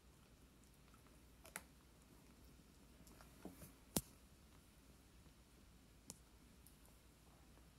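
Near silence: quiet room tone broken by a few faint, sharp clicks, the loudest about four seconds in.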